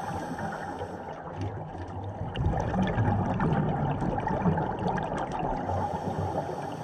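Underwater ambience picked up by a camera in its housing on a scuba dive: a steady, muffled wash of water noise.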